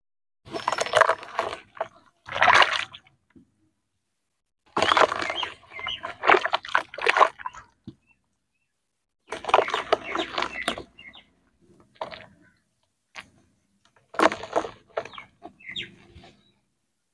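Hands splashing and sloshing in a tub of muddy water as a soaked lump of dried dirt is broken apart and crumbled into it. The wet splashing comes in about six separate bursts of a second or two, with silence between them.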